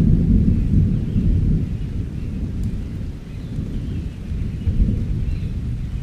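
Thunder rumbling low and uneven in a rainstorm, loudest at first, dying down in the middle and rolling in again near the end.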